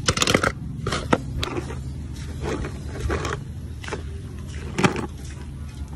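Small die-cast toy cars clinking and knocking against one another and the metal basin as they are rummaged through by hand: a handful of short sharp clacks scattered through, over a steady low hum.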